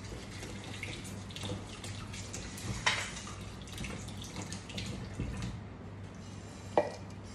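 Kitchen food-prep sounds: scattered light clicks and clinks over a soft, steady watery hiss and a low hum, with two sharper knocks, one about three seconds in and one near the end.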